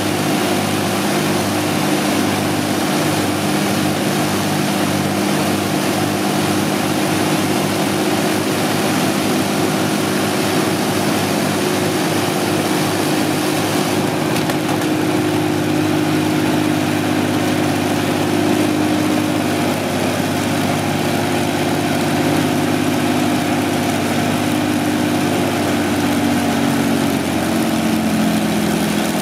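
Two Rolls-Royce Merlin V12 aero engines running together with propellers turning, a steady multi-toned engine note with a throbbing beat in the low end over the first half. The engine note rises slightly near the end.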